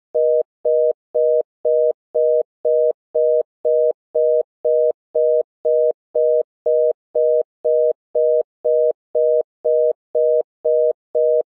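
Philippine telephone congestion tone: two steady tones sounding together, pulsed in short even beeps about twice a second, signalling that the network is congested and the call cannot be put through.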